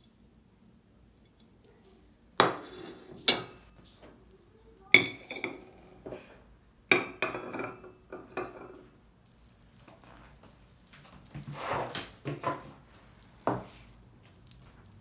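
Royal Albert bone china plate, saucer and teacup being set down on a wooden table and stacked, giving several sharp clinks with a short ring after each, the first about two and a half seconds in.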